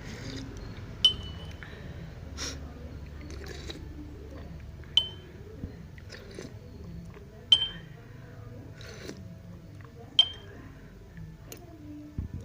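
A metal spoon clinking against a drinking glass while sugar is stirred into warm lime water: four sharp clinks, each ringing briefly, roughly every two and a half seconds, with softer knocks in between.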